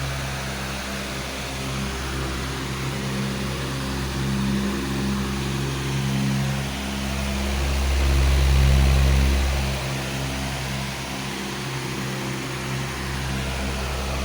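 A powerful electric fan running steadily: a low motor hum under a rush of moving air, swelling briefly about eight seconds in.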